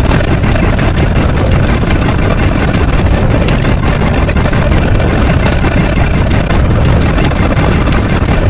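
Loud, steady, noisy rumble, heaviest in the low end, of the engine-like kind.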